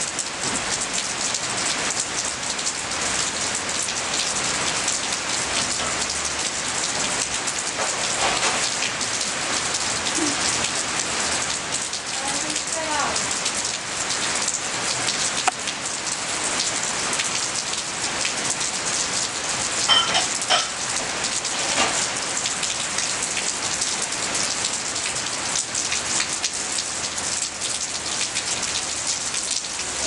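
Heavy rain falling steadily on leafy foliage: a dense, even hiss made of countless fine drop patters.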